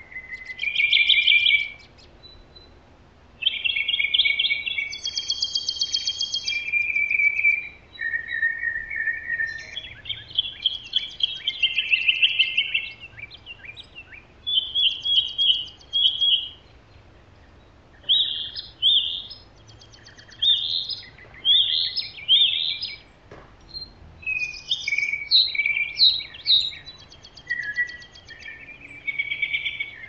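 Songbirds singing in a spring chorus. Several birds overlap: a high, fast trill repeats every few seconds over busy runs of short chirped and whistled phrases.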